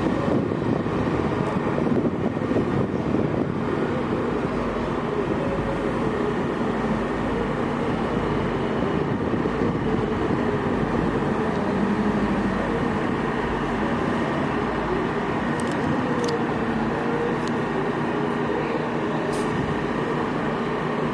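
Engines of a lifted Cadillac SRX and a lifted Chevy Avalanche running steadily as the two trucks creep forward at low speed.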